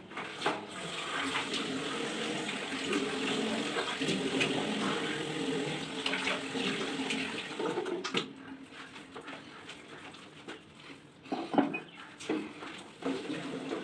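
Tap water running into a sink while rinsing off, with splashing; the flow stops about eight seconds in, followed by a few separate splashes.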